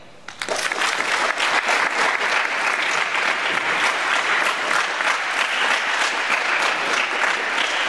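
Audience applauding: a steady round of clapping from many people that starts about half a second in.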